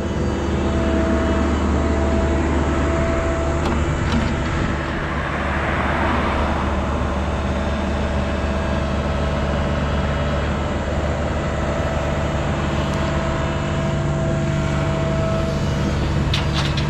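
Engine of a compact diesel construction machine running steadily under work, with a thin steady tone that comes and goes over it.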